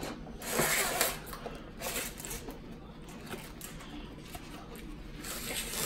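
Paper food wrapper and cardboard takeout boxes being handled: rustling, loudest about half a second to a second in, with a few light clicks and knocks.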